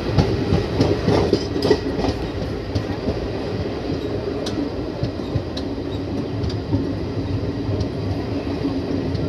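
Indian Railways express passenger coach running along the track, heard from its open doorway. Wheels on rail give a steady rumble, with scattered sharp clicks.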